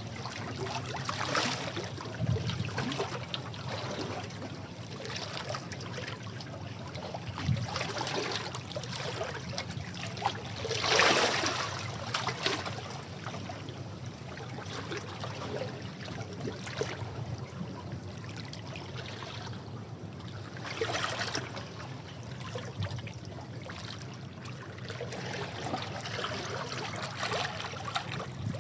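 Sea waves washing against rocks: a continuous rush of water that swells and falls as waves break, with the biggest surge about eleven seconds in and another about twenty-one seconds in.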